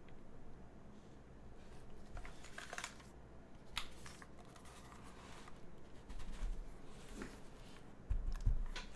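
Keys typed on an Ark68 R2 gasket-mount mechanical keyboard with an aluminium plate, JWK 02 switches and Key Kobo Darling keycaps: scattered, irregular keystroke clicks. There are low thuds about six seconds in and again, louder, near the end.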